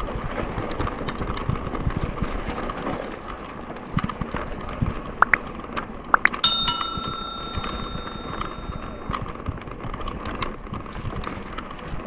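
Bicycle bell on a mountain bike: a couple of short pings, then one clear ring about six and a half seconds in that dies away over roughly two and a half seconds. Underneath runs the steady rumble of riding on a rough track, tyre and wind noise.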